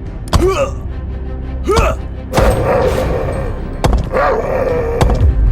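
Background music, with two short swooping cries early on and a couple of sharp knocks later.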